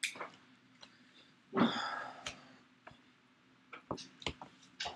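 Small handling noises of the camera kit's packaging being worked on at a table: a few sharp clicks and taps near the end, with one brief louder sound about one and a half seconds in. A faint steady hum sits underneath.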